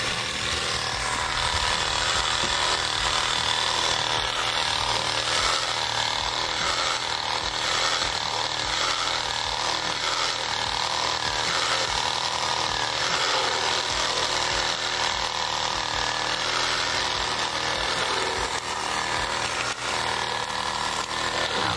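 Two-stroke chainsaw running steadily while cutting into a tree trunk, its engine pitch wavering as the chain bites.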